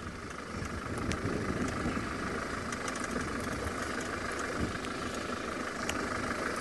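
Open safari game-drive vehicle's engine running as it drives slowly forward over grass, getting louder over the first second and then steady. A few sharp clicks sound around a second in and near the end.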